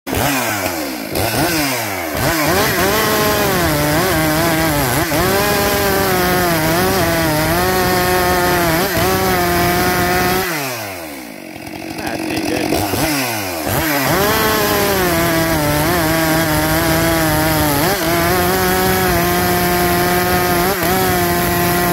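Stihl two-stroke chainsaw at full throttle cutting through a thick log, its engine pitch dipping and wavering under load. About ten seconds in the throttle is let off and the engine falls away briefly, then it revs back up and cuts again.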